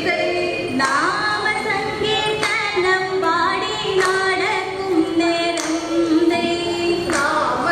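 A woman singing a melodic song into a microphone, her voice amplified over a stage sound system, with long held notes.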